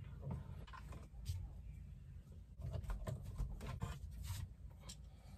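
Faint scratching and clicking of a screwdriver turning out the T20 Torx screws that hold a VW Polo's instrument cluster, a cluster of small clicks around the middle.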